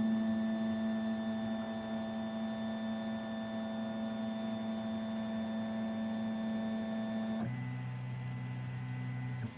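3D printer stepper motors whining steadily as the print head drives a Sharpie across paper in straight strokes. The whine steps down to a lower pitch about seven and a half seconds in, then drops away just before the end.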